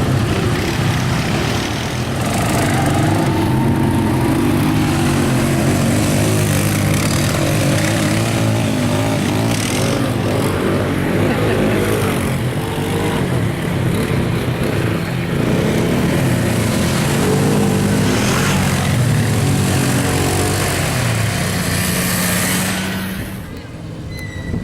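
ATV engine running hard, its revs rising and falling again and again as the throttle is worked. Near the end the engine sound drops away sharply.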